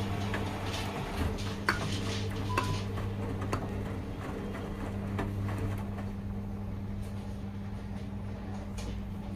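Washing machines running a 40 °C delicates wash: a steady low hum, with light clicks and knocks now and then.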